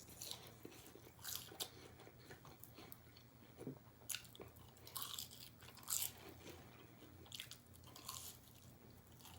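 A person chewing crunchy fried chicken strips and fries close to the microphone, with irregular crisp crunches and bites.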